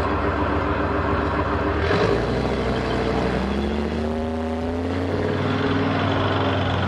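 Leopard 1 main battle tank driving past, its MTU V10 multi-fuel diesel running steadily, then rising in pitch from about three seconds in as it accelerates.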